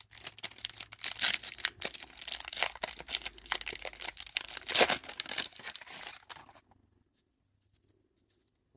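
Wrapper of a trading-card pack being torn open and crinkled: a dense crackling that stops about six and a half seconds in.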